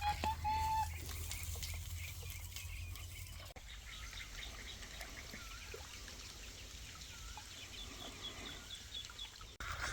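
Faint bird calls: a quick run of repeated pitched calls in the first second, then scattered small chirps. A chicken is likely among the callers.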